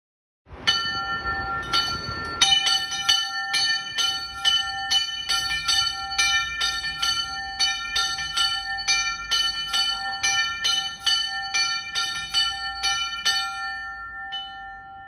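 Bells ringing in a fast, continuous peal of many strikes, about two a second, with their tones ringing on over one another. The peal fades out near the end.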